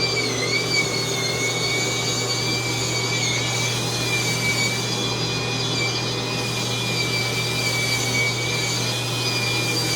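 Electric spin scrubber running with its brush against a bathtub: a steady motor whine whose pitch dips briefly about half a second in as the brush is pressed on.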